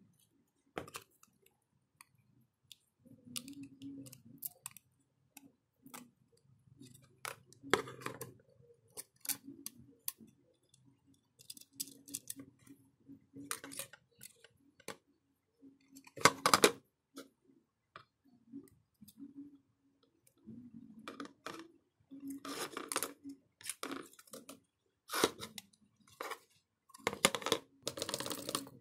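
Small clicks, taps and scrapes of a smartphone's display panel and metal mid-frame being handled and set down on a tabletop, with a louder clatter about halfway through.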